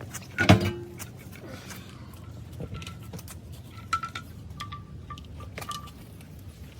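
Metal parts knocking and clinking: one loud knock about half a second in, then several lighter clinks, each with a short ringing tone.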